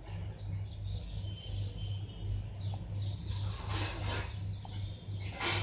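Low background hum that pulses steadily, with two brief rustling noises, one about four seconds in and one near the end.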